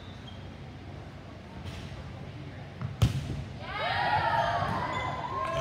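A volleyball struck hard once, a sharp smack about three seconds in, over the low murmur of a gym crowd; about half a second later many voices break out shouting and calling.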